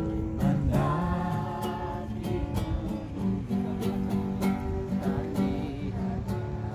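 Background music: an Indonesian worship song with strummed acoustic guitar and singing.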